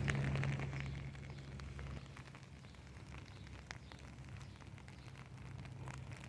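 Rain, with scattered individual drops tapping on a surface at an uneven rate, over a low steady hum that is louder in the first two seconds.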